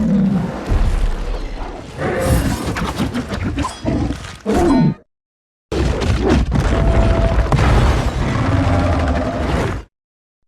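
Skar King giant-ape kaiju sound effects: creature vocal sounds with heavy booms over film music. They come as two clips cut apart by a short gap of silence about five seconds in, and stop shortly before the end.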